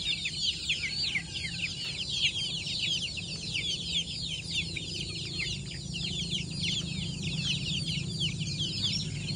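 A flock of young kampung chickens and chicks peeping continuously: many short, high, downward-sliding chirps overlapping one another, over a low steady hum.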